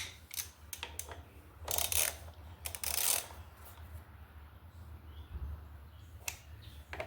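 Hand tools clicking and scraping against metal as the motorcycle's brake caliper bolts are tightened back, with scattered sharp clicks and two short rasping bursts about two and three seconds in, over a steady low hum.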